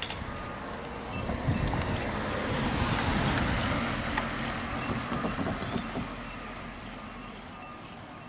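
A road vehicle driving past the crossing, its noise swelling up over a couple of seconds and then fading away.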